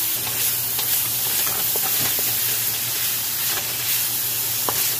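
Diced pork sizzling in hot oil in a pan while a wooden spatula stirs it, with a few short scrapes and taps of the spatula against the pan.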